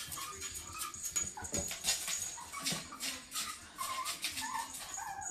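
A puppy whining in many short, high calls while pawing and scratching at a wooden cabinet door, with light scratching clicks among the whines.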